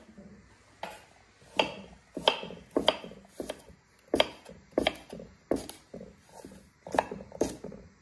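Chef's knife slicing green vegetables on a wooden chopping board, the blade knocking on the wood in a steady rhythm of about three cuts every two seconds, roughly a dozen in all.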